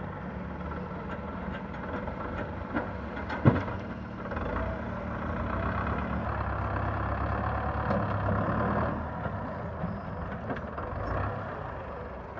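Belarus 510 tractor's four-cylinder diesel engine running steadily, working harder and louder from about four and a half seconds in to about nine seconds while its front loader works. One sharp loud knock about three and a half seconds in.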